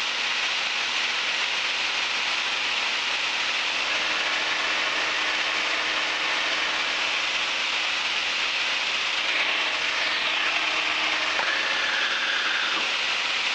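Steady rushing hiss of engine and wind noise in a Piper Warrior's cabin during cruise, thin and without low rumble, as heard through the headset intercom, with a faint falling whistle about ten seconds in.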